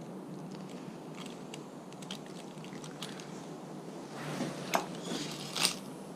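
Bicycle brake cable and outer housing being handled and fed through: light ticks, then a rustling scrape about four seconds in with two sharp clicks.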